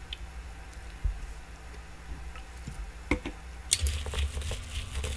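Gloved hands squishing and tossing wet boiled bracken fern stems (gosari) in a stainless steel bowl, working in soup soy sauce. A few small clicks come first, and the mixing starts in earnest about three and a half seconds in.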